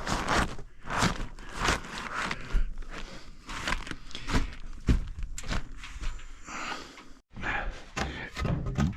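Irregular rustling, scuffing and light knocks of hands-on work: materials being handled and people moving about on the job, with a brief break about seven seconds in.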